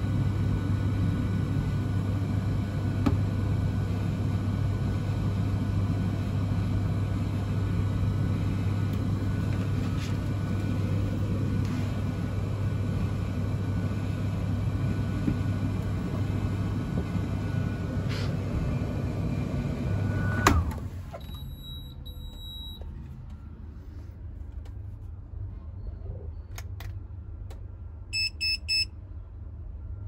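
BEKO DCX71100W condenser tumble dryer running a drying cycle: a steady low hum of the drum motor and fan, which stops with a sharp click about two-thirds of the way through. Near the end come three short electronic beeps.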